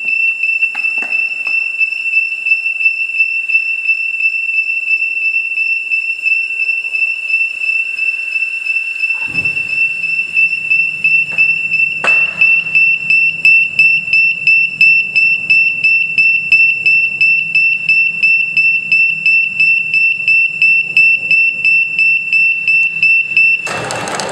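Automatic cooking machine's buzzer beeping rapidly in a high, steady tone: its prompt to add oil to the wok. A low hum joins about nine seconds in. Near the end the beeping stops and a louder, noisy rushing sound starts.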